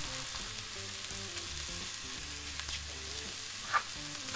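Diced bacon and chopped onion sizzling in a hot cast iron pot, a steady frying hiss as the bacon fat renders out.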